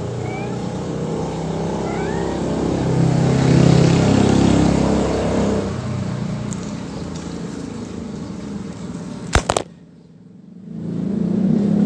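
A low, steady motor hum that swells and fades, with two sharp clicks about nine and a half seconds in, followed by a brief drop to quiet before the hum returns.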